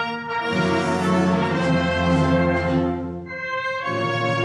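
Orchestral background music with held chords. The fuller sound thins out about three seconds in, then swells back near the end.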